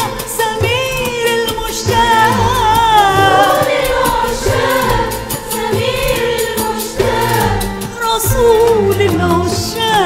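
Live Iraqi song: a women's choir and a female soloist sing an ornamented melody, with an Arabic ensemble of violins, qanun, oud, frame drums and double bass keeping a steady rhythm beneath.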